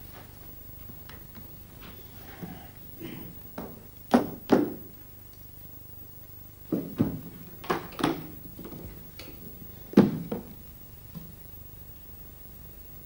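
Metal briefcase catches clicking open, two sharp clicks in quick succession, followed by several more clicks and thunks of handling, with a single strong thunk near the end.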